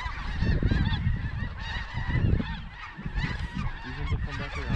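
A large flock of snow geese calling overhead: a constant clamour of many short, high, overlapping calls, with a low rumble underneath.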